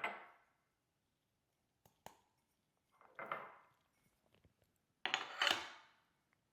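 Kitchenware clinking and clattering as cups or containers are picked up and set down on the counter: three short clattering bursts that ring out briefly, at the start, about three seconds in and about five seconds in, with a couple of sharp clicks near two seconds.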